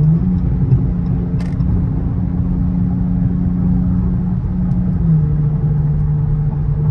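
Dodge Charger GT's V6 engine droning steadily inside the cabin at highway speed, over a low road rumble. Its pitch steps up just after the start and drops back about five seconds in.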